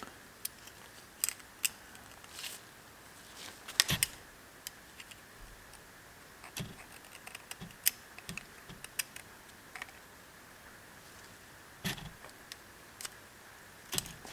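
Scattered light metallic clicks and ticks from a piston ring being spread with ring pliers and fitted into its groove on a 1.9 TDI diesel piston. The sharpest click comes about four seconds in, with others near eight and twelve seconds.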